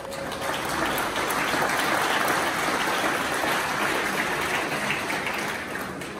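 Audience applauding: dense clapping that builds over the first second or two, then tapers off near the end.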